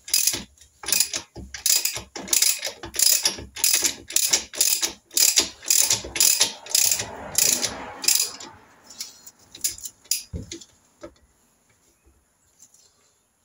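Socket ratchet wrench clicking in short back-and-forth strokes, about two a second, as it runs the oil pressure relief valve cap into the crankcase. The clicking thins out and stops about ten seconds in, with the cap tight.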